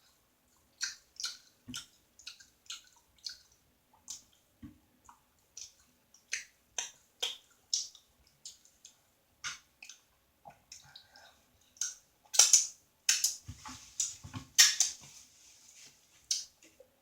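Person chewing a sandwich with wet mouth noises and lip smacks: irregular sharp wet clicks about one to two a second, growing louder and denser in the last few seconds.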